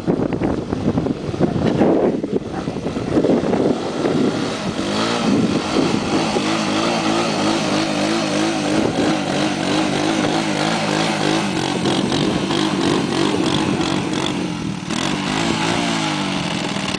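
1986 Honda ATV engine running hard under load while pushing through deep mud; the engine note climbs over the first few seconds, then holds with a quick up-and-down waver in pitch.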